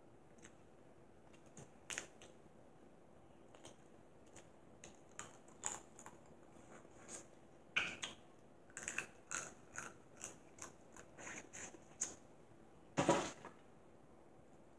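Close-up eating sounds: scattered wet clicks, smacks and small crackles of shrimp shells being peeled by hand and seafood being chewed, thickest in the second half, with one louder burst near the end.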